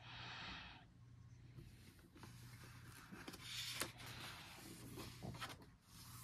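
Faint paper rustling as a coloring book's pages are handled and one page is turned over, with a couple of light taps.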